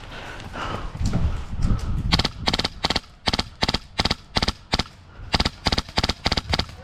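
Airsoft gun firing a string of about a dozen single shots, two to three a second, starting about two seconds in.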